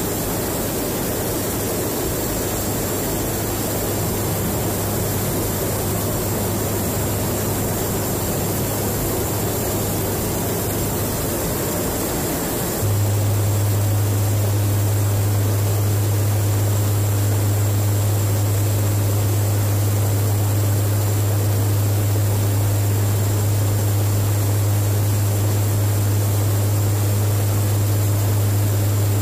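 Turboprop engines and propellers of a KC-130J Hercules tanker droning steadily, heard from inside the aircraft, with a strong low propeller hum over a steady rushing noise. About halfway through, the hum becomes louder and more prominent.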